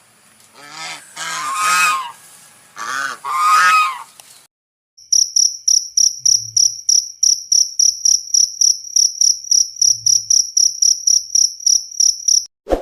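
Domestic waterfowl giving a few loud, nasal honking calls. After a short pause, a cricket chirps steadily at about four high, thin chirps a second until near the end.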